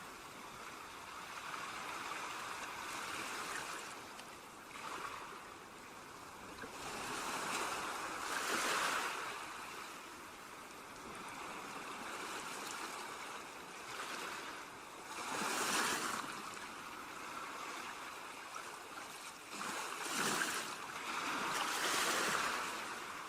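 Ocean surf breaking and washing up on a beach: a steady rush that swells and fades, with a louder wave every few seconds.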